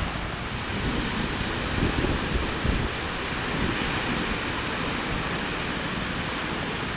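Small sea waves washing steadily onto a rocky shore, a continuous hiss of surf with a few slightly louder swells about two seconds in.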